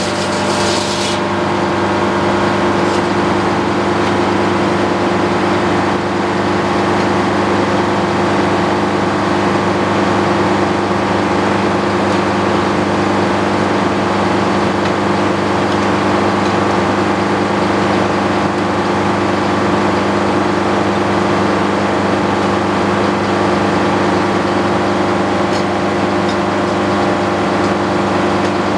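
Antique circular sawmill running steadily, its power engine and spinning blade making a constant mechanical hum with fixed tones that never change in pitch or loudness.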